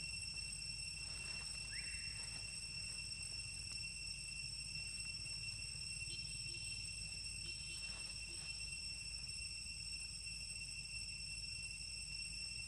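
Steady high-pitched insect drone held on one unchanging note, over a low outdoor rumble. A brief rising chirp about two seconds in.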